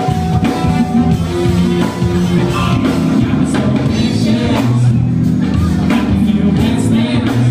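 Live rock band playing loudly: electric guitar, bass, keyboards and a drum kit, with singing, heard from the audience in a club.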